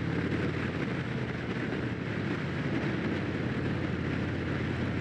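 2019 Harley-Davidson Fat Bob 114's Milwaukee-Eight V-twin with Rinehart slip-on exhausts running steadily at cruising speed, with wind and road rush.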